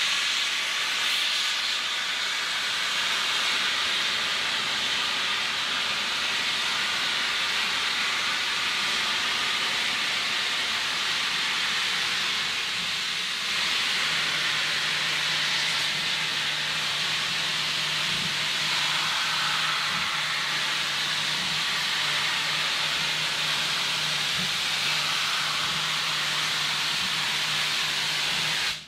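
Steam locomotive venting steam in a continuous loud hiss. A low steady hum joins about halfway through.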